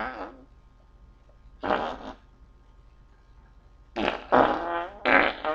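Fart sound effects: the tail of one fading out at the start, a single short fart about a second and a half in, then a quick run of three or four farts near the end, the last one with a buzzing pitch.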